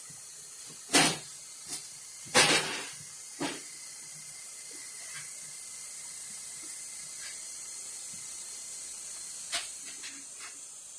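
A person drinking soda from a 2-litre plastic bottle: a few short, sharp noisy bursts, the loudest about one second and two and a half seconds in, over a steady high hiss.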